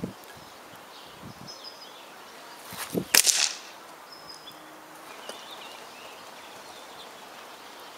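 A single air rifle shot, a sharp crack about three seconds in, with small birds chirping faintly.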